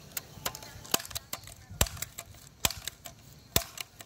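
Multi-pump BB gun being pumped: sharp clicks of the pump lever, a loud one about every second with fainter clicks between.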